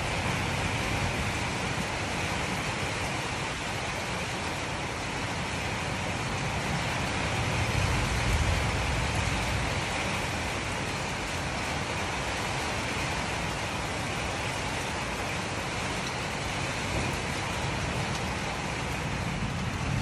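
Strong storm wind blowing, buffeting the microphone with low rumbling gusts over a steady rushing hiss; a gust swells loudest about eight seconds in.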